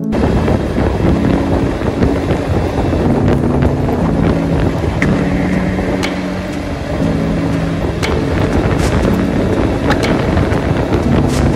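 BMW F800GS motorcycle on the move: wind rushing over the microphone, with the engine running underneath.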